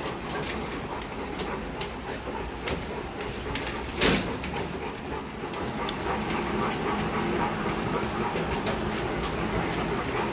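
Kennel background noise: a steady haze with scattered clicks and rattles, and one loud knock about four seconds in.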